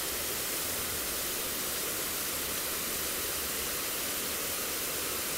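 Waterfall cascading in many thin streams down a broad face of columnar basalt: a steady, even rush of falling water.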